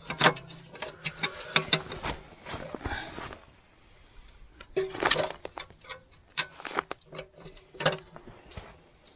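Metal tent-stove parts clinking and clattering as they are handled and fitted together: a run of sharp, irregular metallic clicks and clanks, busiest in the first three seconds and again from about five to eight seconds in.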